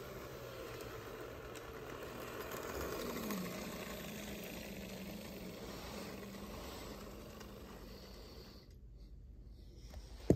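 O-scale model steam locomotive running on two-rail track: a steady electric-motor hum and wheel rattle that grows louder as it nears, peaking about three seconds in, then easing off. A sharp click right at the end.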